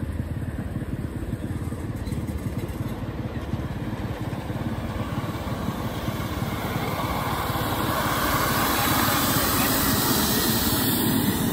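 5-inch gauge live-steam model of the LNER A4 'Sir Nigel Gresley' running along the track, its rapid exhaust beats and wheel clatter growing louder from about halfway through as it comes close and passes, with a rising hiss near the end.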